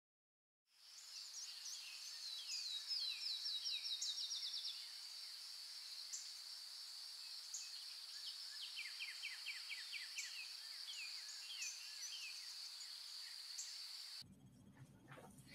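Faint nature ambience: birds singing fast trills of quickly repeated falling notes over a steady high-pitched insect drone. The sound starts a moment in and cuts off shortly before the end.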